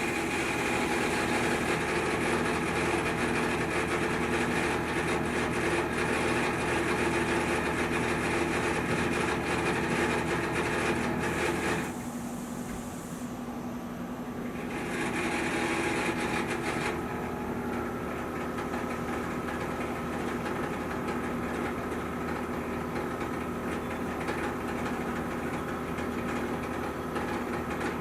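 Takamaz XT-8MY CNC lathe machining a shaft: steady machine running with a hum and several fixed whining tones over a hiss. It changes about halfway through, with a short burst of hiss, then carries on at a different pitch as the next operation runs.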